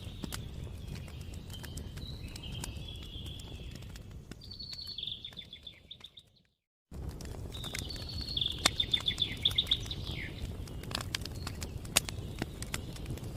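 Wood fire crackling with sharp pops over a low rumble, with high chirping trills of birds above it. Just past the middle the sound fades and cuts out for about half a second, then comes back.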